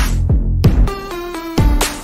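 Electronic background music: deep bass hits that drop in pitch, with a run of held synth notes in the second half.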